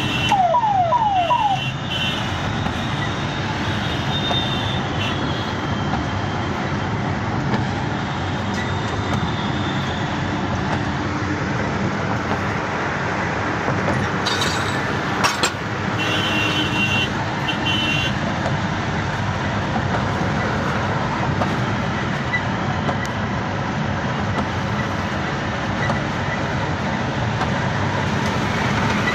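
Steady rumble of a moving vehicle, with four quick falling squeals about a second in.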